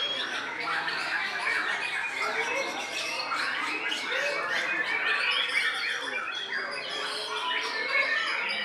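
White-rumped shama singing a dense, unbroken run of varied whistles, chirps and quick rising and falling glides.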